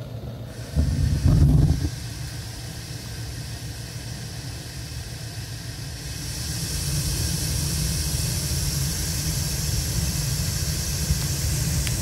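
Gas burners of an old Crane 100 series boiler lighting off the standing pilot, with a low burst about a second in. They then burn with a steady low rumble and a hiss that grows louder from about halfway.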